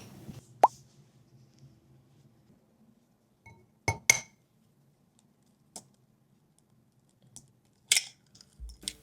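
Kitchen handling sounds: a single sharp plop with a quick falling pitch, then a few light clicks and clinks of dishes being set down.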